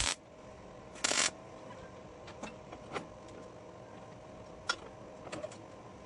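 MIG welder striking two short tack welds on steel, one right at the start and a louder one about a second in, each lasting a fraction of a second. A few light metallic clicks follow.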